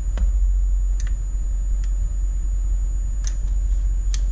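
Steady low hum with a faint high-pitched whine over it, and a few soft clicks and taps as a handheld luminance meter is handled against the LCD screen.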